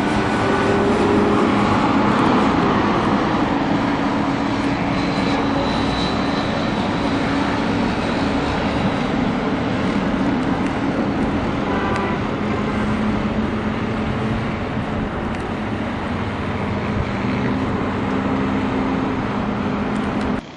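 Coach bus engine running close by: a loud, steady engine rumble, swelling slightly a second or two in, then holding even.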